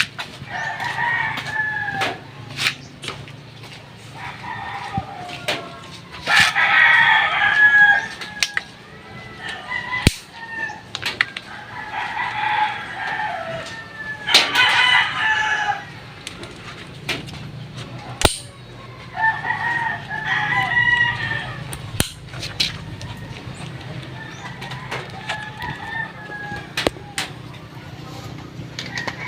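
Roosters crowing several times, each crow lasting one to two seconds. Sharp clicks and knocks come in between.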